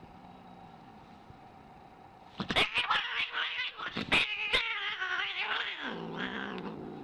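A cat yowling: one long, wavering cry that starts about two and a half seconds in and drops in pitch near the end, with several sharp knocks or clicks around its start.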